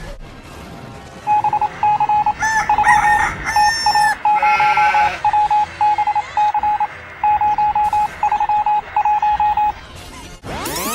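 Rapid runs of short electronic beeps at one pitch, stopping and starting in groups, with a squawking, warbling cry over them about two to four seconds in.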